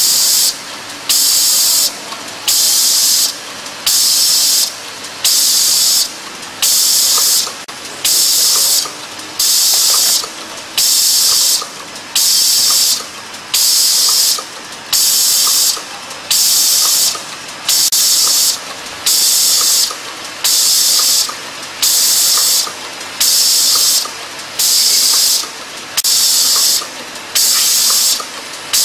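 Eyedrop filling and capping machine running through its cycle, with a burst of high hiss about every second and a half, each just under a second long, over faint clicking of the mechanism.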